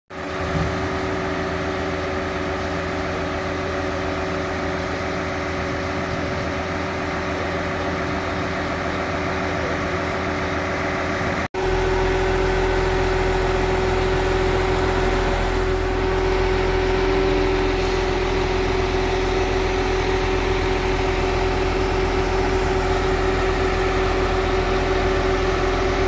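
Truck-mounted concrete boom pump running steadily, its diesel engine and hydraulics giving a constant hum with a steady tone over it. A brief dropout comes about halfway, after which the same sound continues slightly louder.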